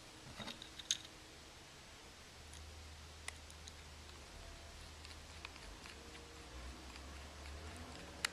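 Scattered small clicks and ticks of a small screwdriver and fingers working on an iPhone 4 while its two bottom screws are driven back in. The sharpest clicks come about a second in and at the end.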